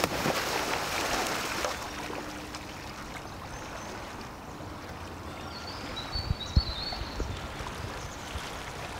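A kayak seal-launching off a grassy bank into a river: a big splash in the first second or two, then the wake and water settling as the kayak is paddled away.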